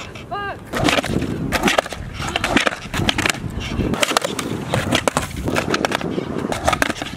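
Skateboard wheels rolling on asphalt, with repeated sharp clacks as the deck pops and lands and the board knocks against a concrete curb during ollie attempts. A dog barks once, about half a second in.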